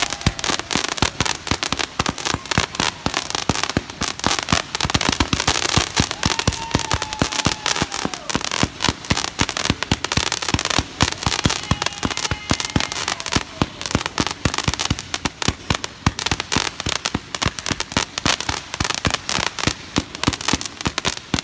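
A 145-shot zipper firework cake firing in rapid succession: a fast, continuous string of shots with crackling mines sputtering between them.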